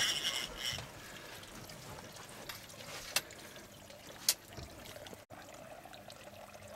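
Faint trickling and lapping of water along a moving boat's hull, with two sharp clicks in the middle. A high steady whine fades out in the first second.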